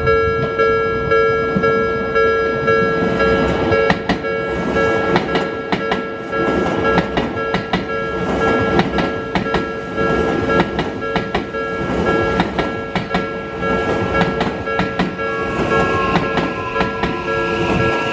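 Odakyu 5000 series train's wheels clacking over rail joints, a quick, uneven run of sharp clicks that grows denser after a few seconds. Under it, the level crossing's electronic warning bell rings steadily.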